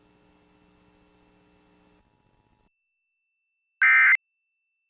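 Emergency Alert System end-of-message data burst: one short, loud, buzzy digital warble about four seconds in, the first of the three EOM bursts that close a required monthly test. Before it a faint steady hum fades out about two seconds in, then silence.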